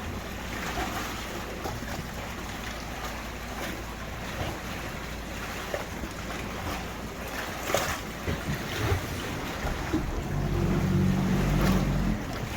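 Sea water sloshing against a small tour boat with wind on the microphone, a few short splashes or knocks around the middle. Near the end the boat's engine comes in as a low steady drone for about two seconds.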